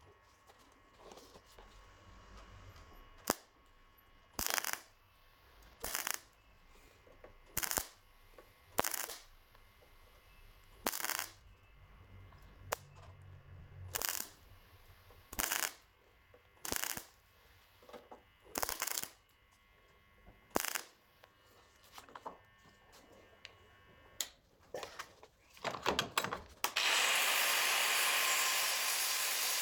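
MIG welder laying a row of short tack welds on thin steel body panel: about a dozen welds, each under a second long, roughly one every second and a half. Near the end an angle grinder starts and runs steadily, grinding the welds down.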